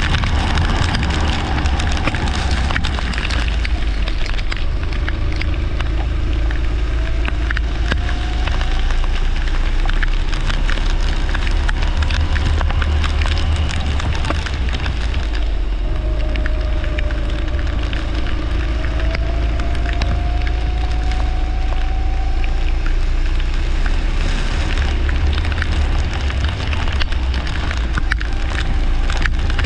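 A leisure kart running on a wet track: heavy wind rumble and constant crackle on the microphone, with the kart engine's faint drone rising and falling in pitch.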